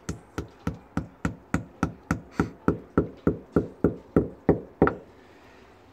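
Claw hammer tapping a plastic wall anchor into a drilled hole in a brick wall: a steady run of about eighteen taps, three or four a second, stopping about five seconds in.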